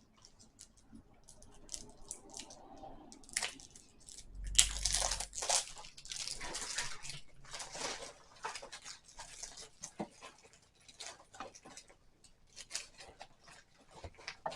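Cosmetic packaging being torn and opened by hand: irregular plastic crinkling, tearing and clicks, loudest and most continuous about four to eight seconds in, with a dull bump of handling near the start of that stretch.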